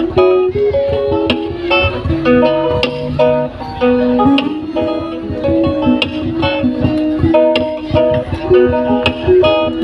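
Two acoustic guitars playing an instrumental duet: a quick run of single picked melody notes over plucked accompaniment.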